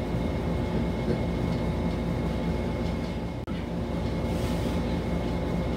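A steady, even mechanical hum, such as a running motor or fan, with a faint constant high tone above it.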